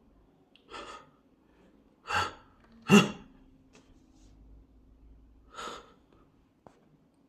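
A person gasping in sharp breaths, building up to a loud sneeze about three seconds in, with another gasping breath near the end.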